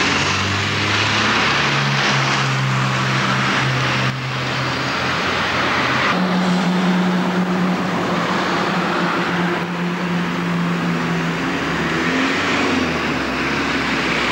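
Motor traffic close by: a vehicle engine's low hum that shifts pitch a few times, over steady road noise.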